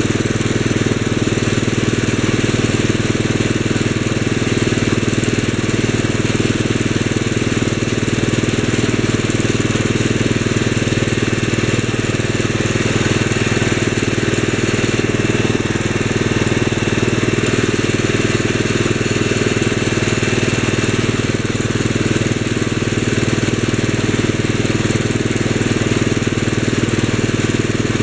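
A 1965 Wheel Horse 875's 8-horsepower engine running steadily at an unchanging speed.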